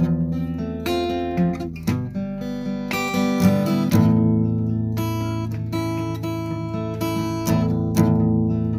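Acoustic guitar strumming chords, in an instrumental passage of the song.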